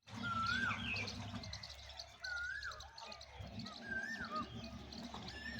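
Birds calling: one clear whistled call, rising and then dropping, repeated four times about every one and a half to two seconds, over steady high-pitched chirping and twittering.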